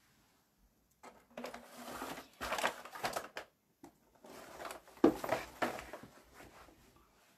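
Close rustling and clattering handling noise in two bursts of a couple of seconds each, as someone fiddles with a phone and moves about right by the microphone; a sharp knock about five seconds in is the loudest.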